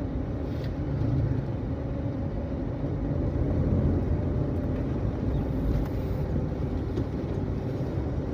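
Steady low engine and road rumble of a car driving at a moderate speed, heard inside the cabin.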